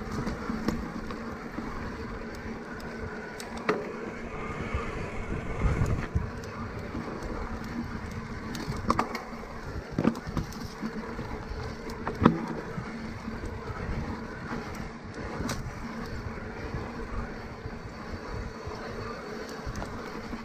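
An electric mountain bike being ridden, with a steady hum, rough wind noise on the microphone, and scattered sharp knocks and rattles from the bike over bumps, the loudest about twelve seconds in.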